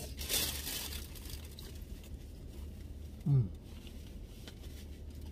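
A person eating a pulled pork sandwich: a short rustle near the start, then faint chewing and handling noises, with a brief hummed 'mm' about three seconds in, over a low steady hum.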